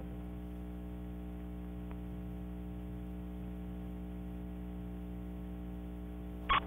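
Steady electrical hum with a stack of overtones from the blank tail of a 16mm film's optical soundtrack. Two short loud pops come near the end.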